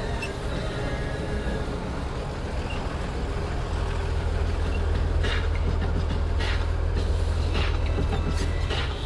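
Farm tractor engine running steadily under way, heard from inside the cab as a low drone, with a few short knocks and rattles in the second half.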